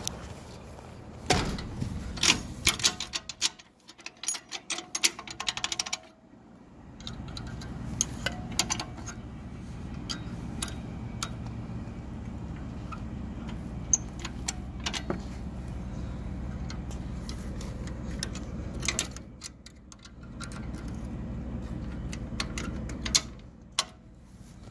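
Metal clinks and rattles of a rusty trailer ball coupler being latched and its hitch pin clip fitted, most of them in the first few seconds, over a steady low hum.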